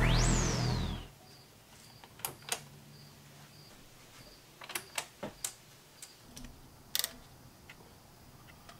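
Electronic intro music ends in a falling high sweep within the first second. After that it is quiet, with scattered light clicks and taps and a faint, high repeated beep.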